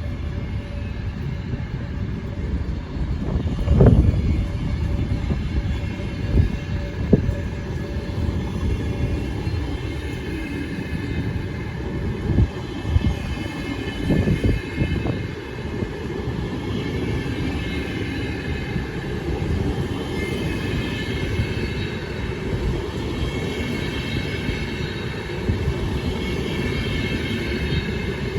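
Train running on the rails: a steady rumble of wheels with several heavy knocks in the first half, and high wheel squeal that grows stronger from about two-thirds of the way in.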